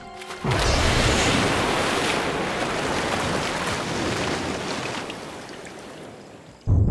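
A big, sudden splash in a river as an Australian freshwater crocodile lunges at a skimming flying fox, followed by spray raining back onto the water and the surface washing, slowly fading over several seconds.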